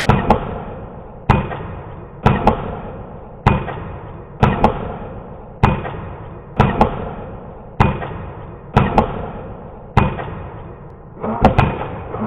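Slow, regular footsteps echoing in a large hall, about one a second, each landing as a quick double knock.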